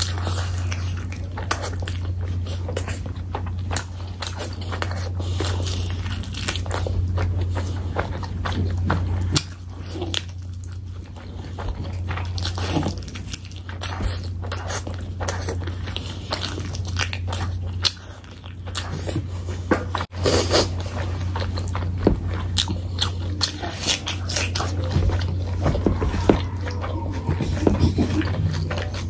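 Close-miked eating sounds: biting meat off a chicken drumstick and wet chewing of curry and rice, with many small clicks and smacks. Fingers squish through rice and curry on the plate. A steady low hum runs underneath.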